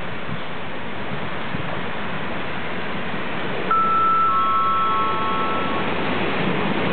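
Three pure chime notes stepping down in pitch ring out about halfway through, each starting a little after the one before, then fading. Under them, the low steady rumble of an approaching train grows louder toward the end.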